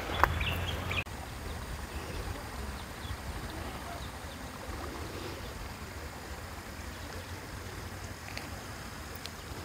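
Steady low outdoor rumble, such as wind or distant background noise, with a sharp click about a quarter of a second in.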